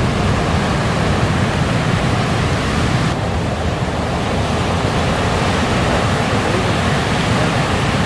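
Steady roar of breaking ocean surf and rushing whitewater, with a slight change in its hiss about three seconds in.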